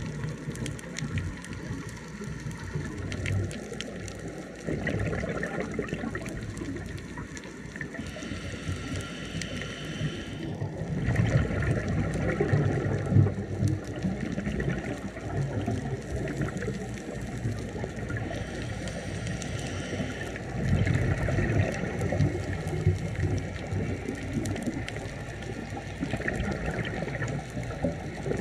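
Scuba diver breathing through a regulator underwater: a hiss on each inhale followed by a louder burst of bubbling exhaust on each exhale, a few breaths in a row.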